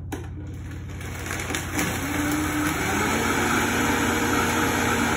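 Countertop blender switched on and blending a thick slushy mixture of orange juice, yogurt and honey: the noise rises and settles into a steady motor whine about two seconds in, then stops right at the end.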